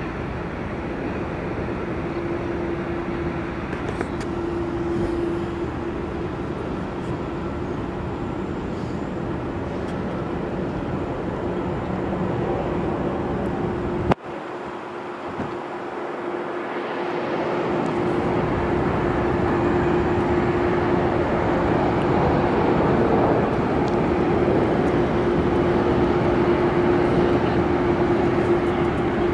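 Jet airliner engines running at taxi power: a steady rumble with a held whine. A click about halfway through breaks the sound, which then swells back over a few seconds to a louder rumble.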